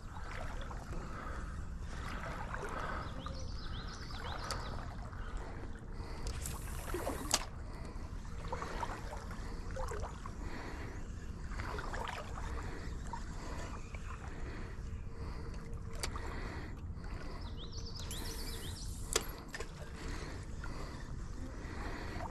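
Flowing trout stream with a steady low rumble, likely wind on the microphone. About a third of the way in and again near the end comes a brief hiss that ends in a sharp click.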